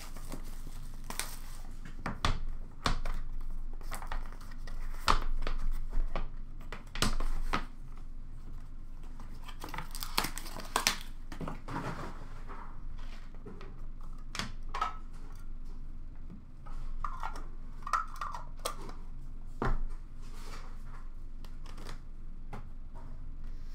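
Hockey card box and packs being handled: a cardboard box opened, wrappers crinkling, and cards and packs set down with irregular sharp clicks and knocks, with longer rustling about halfway through.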